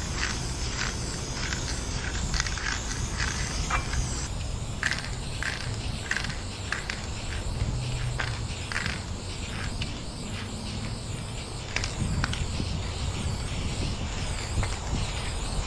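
Aerosol spray paint can spraying black fill-in onto a rough concrete wall, a hiss broken into many short strokes, over a low rumble.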